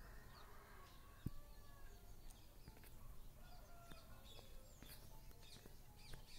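Faint birds chirping and calling in the background in short gliding whistles, with a single sharp click a little over a second in.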